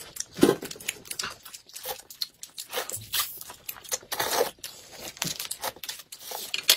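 Crinkly plastic snack wrappers being torn open and crumpled in irregular short bursts, alongside noodles being slurped.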